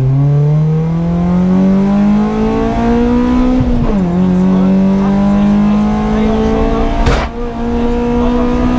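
BMW 318ti E36 Compact's stock four-cylinder engine under hard acceleration, heard from inside the cabin: the pitch climbs for about four seconds, dips briefly at an upshift, then climbs steadily again. A single sharp thump about seven seconds in.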